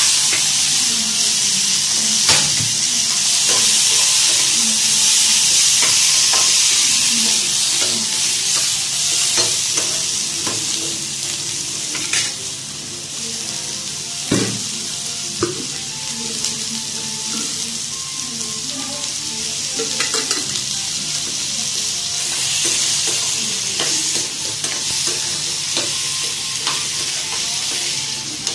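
Chopped tomatoes sizzling as they fry in a steel pan, with a metal spoon clinking and scraping against the pan now and then. The sizzle eases a little about halfway through.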